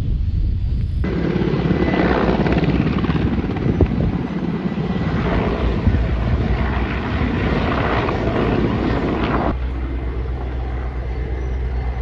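Large firefighting helicopter flying overhead, its rotor and turbine noise steady and pulsing; the sound turns to a deeper rumble near the end.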